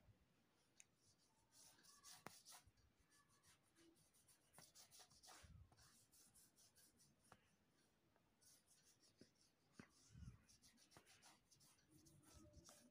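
Faint, scratchy strokes of a paintbrush across paper, coming in short runs, with a few soft low knocks.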